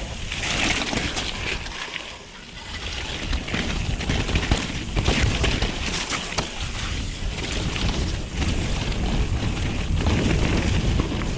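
Wind rushing over a helmet camera's microphone as a mountain bike rolls fast down a dirt trail, with tyre noise and frequent knocks and rattles from the bike over bumps. The noise dips briefly about two seconds in.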